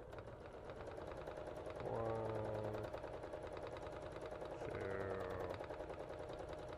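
Domestic sewing machine stitching fast during free-motion quilting, the needle clattering in a rapid, even rhythm over the motor's whine. The motor pitch rises about two seconds in and shifts again around five seconds in as the stitching speed changes.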